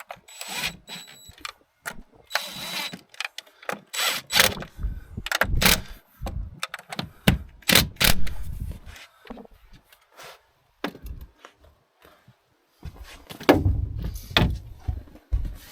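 Cordless impact driver run in several short bursts of about half a second, snugging bolts lightly, mixed with clicks and clatter of tools and parts being handled.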